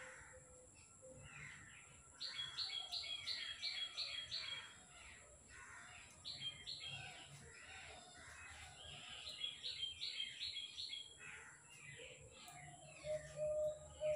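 Small birds chirping: three bouts of quick, evenly repeated high chirps, with a few lower calls near the end.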